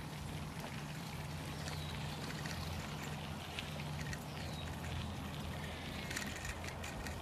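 Cart driving along a dirt track: a steady low hum from the cart with tyre noise and small rattles and clicks.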